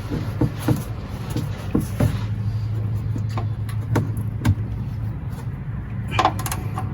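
A wrench working the 17 mm oil drain plug of a Ford 6.8 V10 oil pan as it is broken loose: irregular metallic clicks and knocks, with a short ringing clink near the end. Under it runs a steady low hum.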